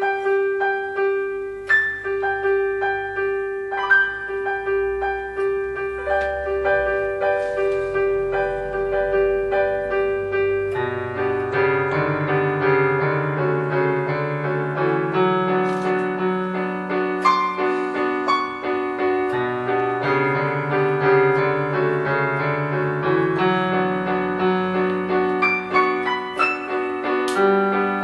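Casio electronic keyboard played in a piano voice: a slow melody of single notes over a steady held note. About eleven seconds in, a bass line and fuller chords join and the playing thickens.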